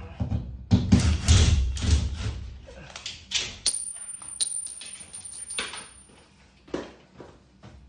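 Knocks, rattles and clicks of hands working on a ceiling LED tube light fitting, reworking an end screw that went in crooked. A dense run of knocks comes in the first couple of seconds, then a few separate clicks, with a faint thin high whine in the middle.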